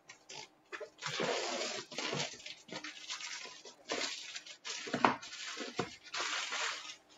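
Clear plastic wrap being torn off a cardboard box and crumpled by hand, crinkling and rustling in uneven spurts with a few sharper crackles.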